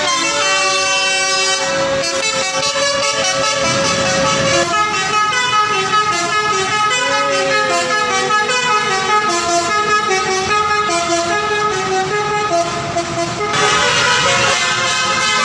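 Indonesian bus's basuri musical air horn (telolet basuri) playing a tune: a long held note, then a run of quick stepped notes with a falling glide.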